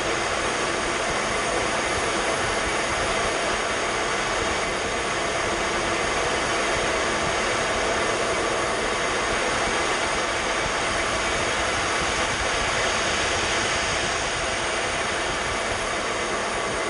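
Steady roar of engine and airflow noise inside an F-15 fighter's cockpit in flight, an even rushing sound with a faint hum and no change in pitch or level.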